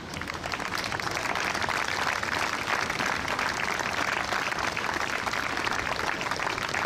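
A large crowd applauding, swelling over the first second or two and then holding steady.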